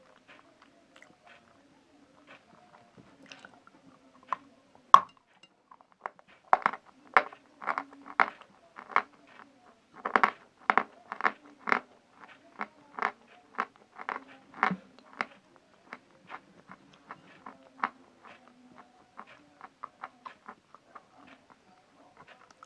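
Someone bites through a piece of dry edible chalk with a sharp snap about five seconds in, then chews it with loud crunches about two a second. The crunches grow fainter and sparser after a few seconds, as the chalk crunches only briefly before softening.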